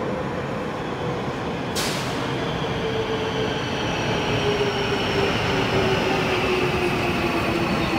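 Marmaray electric commuter train pulling into an underground station, a steady rumble growing louder with a whine that slowly falls in pitch as it slows. A single sharp click about two seconds in.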